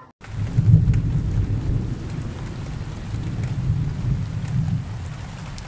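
A thunder-and-rain transition sound effect: a deep rumble under a steady hiss that sets in sharply just after a brief gap, is loudest about a second in, and slowly fades.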